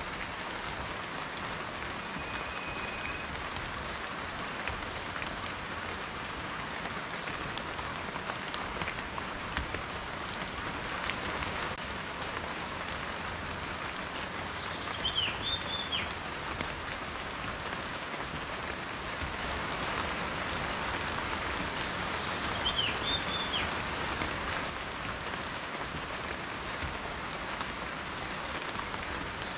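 Steady rain falling, with scattered drops ticking on a surface. Two brief high chirps come through, about halfway and about three-quarters of the way through.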